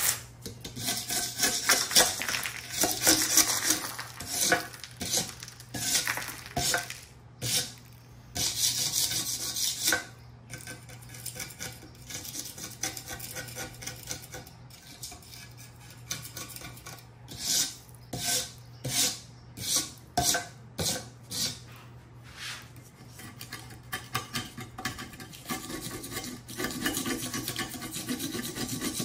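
Metal blade of a floor scraper scraping old, flaky kiln wash off a kiln shelf in short, uneven strokes, with loosened chips of wash and glaze clinking and rattling.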